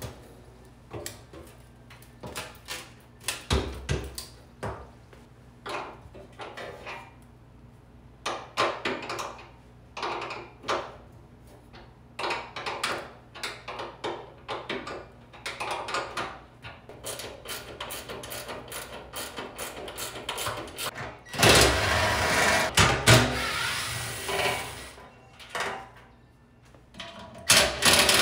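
Scattered clicks and knocks of hands working on a generator's steel frame and fuel tank, then a cordless drill running for about three seconds roughly three-quarters of the way through, and starting again near the end.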